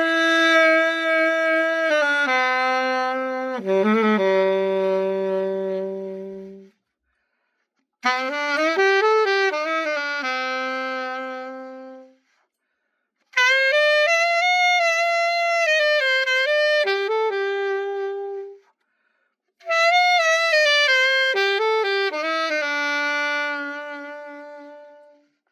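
Legato AS-590 alto saxophone played in four short phrases separated by brief pauses, each stepping down to a held low note that fades out: the instrument being play-tested after a full overhaul.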